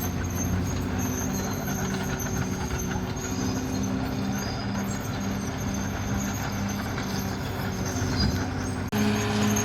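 Caterpillar D6R bulldozer's diesel engine running steadily under work, its low hum pulsing about twice a second. The sound changes abruptly near the end and comes back slightly louder and higher.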